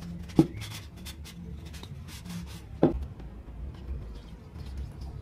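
A cloth rag rubbing over the wooden body of an old hand plane, with two sharp knocks of wood on the workbench about two and a half seconds apart.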